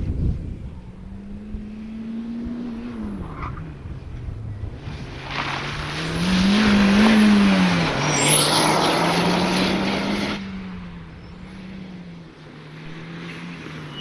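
Mitsubishi Lancer Evolution rally car's turbocharged four-cylinder engine revving up and down through the gears on a special stage. From about five to ten seconds in, a loud rush of tyre and road noise comes in as the car passes close, then fades.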